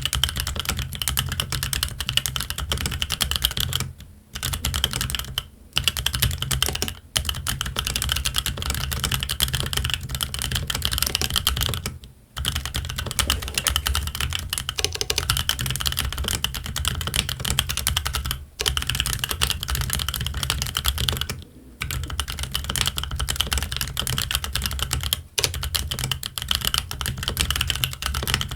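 Fast, continuous typing on a Keychron Q1 mechanical keyboard fitted with Gazzew Boba U4T tactile switches and ABS Cherry-profile keycaps. There are brief pauses every few seconds.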